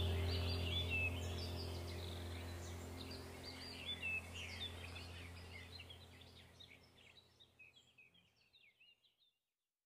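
Small birds chirping and singing over a low steady drone, the whole fading out to silence about seven seconds in.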